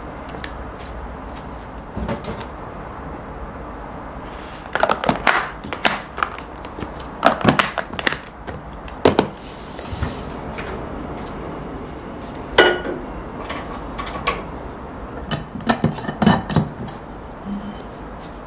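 Plastic food containers being handled: clicks and knocks as lids are pressed on and the boxes are stacked and set on a countertop, in several short clusters.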